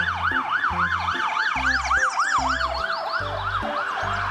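Electronic police-style siren, its pitch rising and falling about four times a second, growing fainter in the last second, over background music with a steady bass beat.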